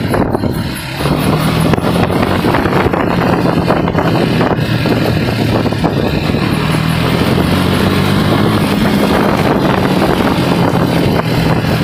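KTM Duke single-cylinder motorcycle engine running while riding at about 30 to 45 km/h, its note rising a little past the middle and easing back, with wind and road noise.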